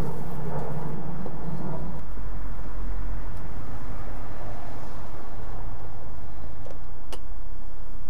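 Steady low background rumble with a noisy haze, and a single sharp click about seven seconds in.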